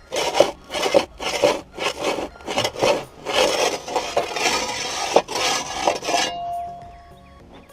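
Packed dirt being scraped out of an excavator's steel track undercarriage with a hand tool: a run of rasping scrapes, about two a second, that stops about six seconds in. Faint background music carries on under and after it.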